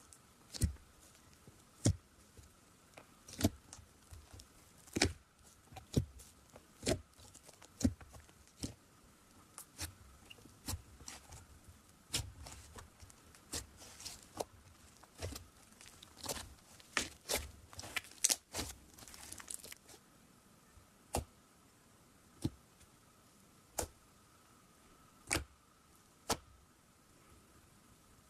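Pink fluffy slime being poked, stretched and pressed flat by hand, giving an irregular string of sharp clicks and pops from trapped air bursting, thickest about two-thirds of the way through.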